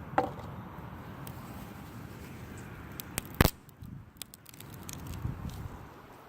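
Dry sticks and twigs crackling and knocking as wood is gathered and handled. There are a few sharp cracks, the loudest about three and a half seconds in.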